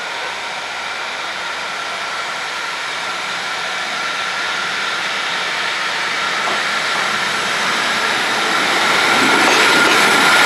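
A train running past on the rails, its rushing noise growing steadily louder as it comes closer, with a thin high whine rising near the end.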